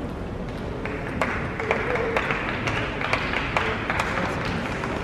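Table tennis ball clicking sharply off bats and table in a rally, about two hits a second, over the steady murmur of an arena crowd.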